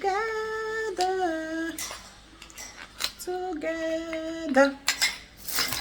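A woman singing a few long held notes without words and without accompaniment, the tune stepping between pitches, followed near the end by a short clatter of things being handled.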